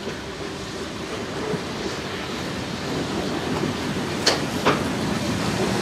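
Steam train led by DR class 03.10 locomotive 03 1010 running along the track towards the listener, its running noise growing steadily louder. Two sharp clicks come close together about four seconds in.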